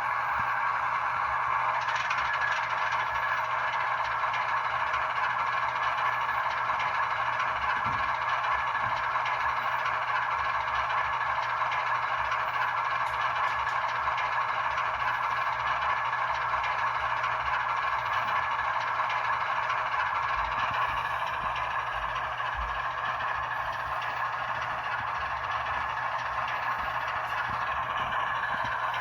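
HO scale model of a GE ES44 diesel locomotive with a DCC sound decoder running steadily along the track, its small onboard speaker playing the diesel engine sound.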